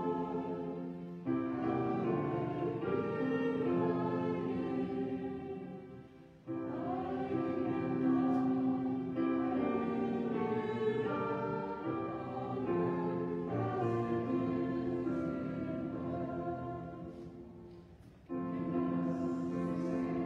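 Slow church music of sustained sung chords, moving in phrases that fade and begin again about six and eighteen seconds in.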